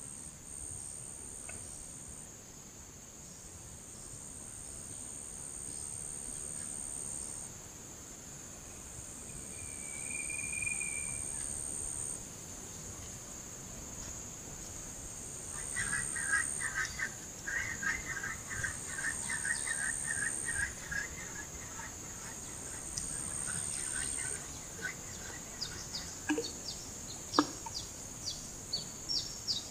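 Insects buzzing and chirping steadily in high-pitched pulses, with a bird calling in rapid repeated notes midway. Near the end a run of light clicks and a sharp knock, as a spinning fishing rod is handled.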